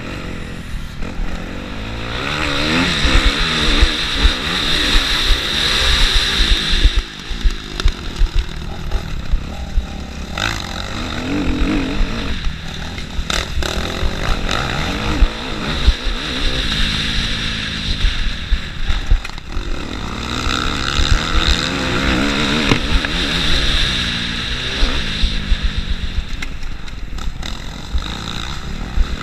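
Motocross bike engine heard from on board, its pitch repeatedly rising and falling as the rider accelerates and shuts off through the corners and straights, with wind rumbling on the microphone.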